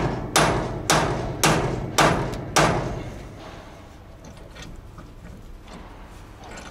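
Six hammer blows on metal about half a second apart, each ringing briefly, knocking loose the truck's steering shaft joint to disconnect it.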